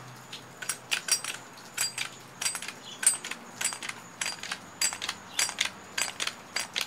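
Plastic clamp head of a budget bicycle repair stand being handled and worked: a run of irregular sharp clicks and clacks, about three a second, some with a light metallic ring from its spring and bolts.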